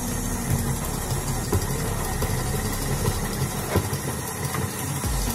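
KitchenAid stand mixer running with its dough hook kneading a stiff pandan bread dough in the steel bowl until it turns smooth and elastic. A steady motor hum with repeated low knocks.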